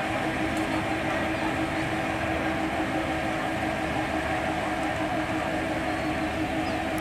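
Diesel locomotive idling steadily at a standstill, a constant engine hum with a held low tone.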